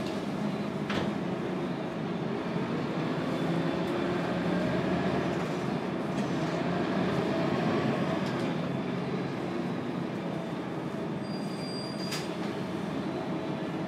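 Interior of a Scania K280UB city bus under way: its rear-mounted Scania DC9 9-litre five-cylinder turbo diesel and ZF Ecomat automatic gearbox running with road noise, heard through the passenger cabin. The engine sound swells to a peak about eight seconds in and then eases, with a few short knocks and rattles.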